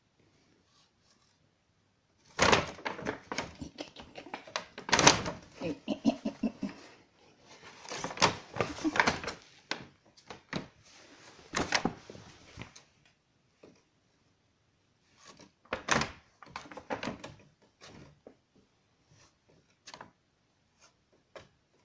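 Paper shopping bag crackling and rustling as a cat pounces and thrashes under it, with soft knocks against the floor. The noise comes in busy bursts through the first half, then in shorter scattered rustles.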